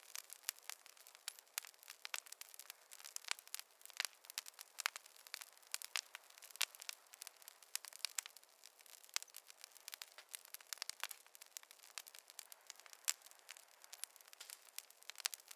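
Wood fire crackling in a fireplace: a steady stream of irregular sharp pops and snaps over a faint hiss.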